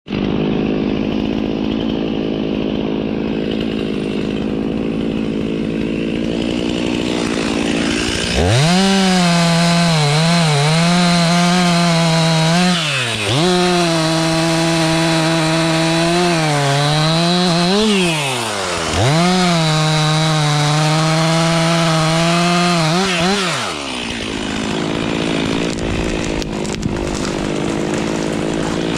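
Stihl MS 362 two-stroke chainsaw idling, then revved hard to cut into a felled pine trunk in three long bursts, its pitch sagging and wavering under load, before dropping back to idle near the end.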